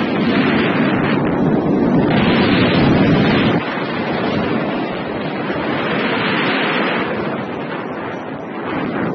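Wind buffeting the action camera's microphone as a skier rides downhill, with the hiss and scrape of skis on snow. It is heaviest for the first few seconds and drops suddenly about three and a half seconds in.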